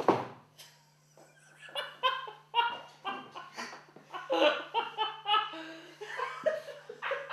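A sharp thud as a body lands on a wooden conference table, then, after a brief pause, hearty laughter in quick bursts.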